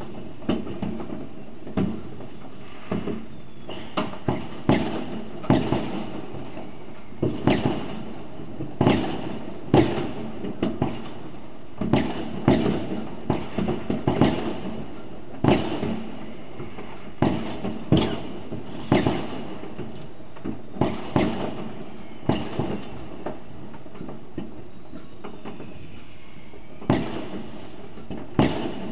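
New Year's Eve fireworks bursting at a distance: an irregular run of sharp bangs, a little more than one a second, each fading quickly.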